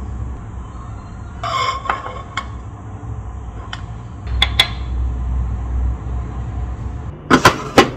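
Wooden spoon and chopsticks knocking and clinking against a glazed ceramic bowl, with a few scattered knocks and then a quick run of louder clicks near the end. A low steady rumble runs underneath.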